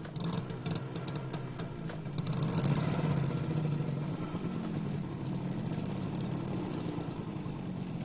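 A motorcycle engine running as the bike rides along a road. It gets louder about two and a half seconds in as the bike comes close, then holds steady.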